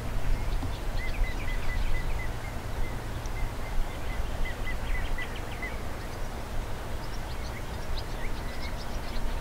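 A small bird singing runs of short, evenly spaced chirps, one long run and a shorter one near the end, over a steady low rumble from a freight train of hopper cars rolling away in the distance.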